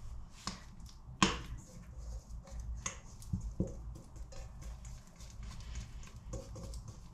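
Small clicks and knocks of a stainless steel mixing bowl and hands on a kitchen worktop as wet, sticky bread dough is tipped out onto a floured surface, with one sharper knock about a second in.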